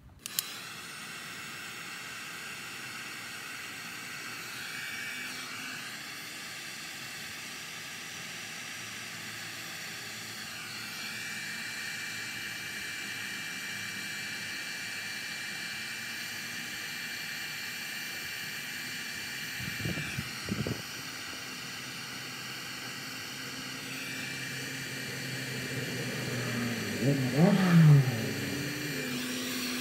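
Cordless heat gun switched on with a click and running steadily, a fan whir under a hiss of hot air, while it shrinks heat-shrink tubing over crimped butt connectors. The whine steps in pitch a few times, and near the end there is a brief louder sound with a wavering pitch.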